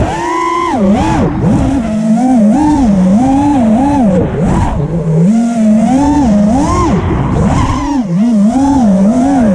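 FPV racing quadcopter's electric motors and propellers whining, heard from on board, the pitch swinging up and down about twice a second as the throttle is worked in flight.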